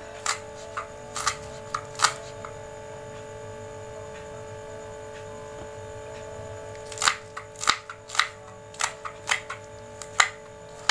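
Kitchen knife slicing spring onions on a wooden cutting board: sharp knocks of the blade on the board, about two a second, in a run during the first two seconds and again from about seven seconds in, with a pause between. A steady hum runs underneath.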